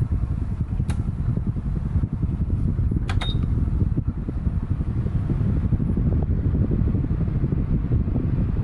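Electric fan running with a steady low whoosh of moving air. A sharp click comes about a second in, and another about three seconds in with a short high beep, like a control button being pressed.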